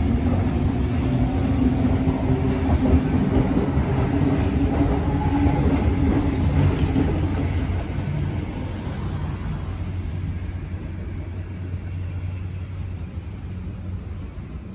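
A train running past with a steady low hum and rumble, loudest for the first half, then fading off after about eight seconds.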